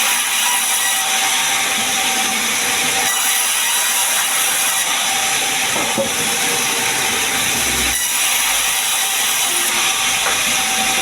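Large sawmill saw running and cutting gmelina timber into planks: a steady, loud, mostly high-pitched mechanical din with no pauses.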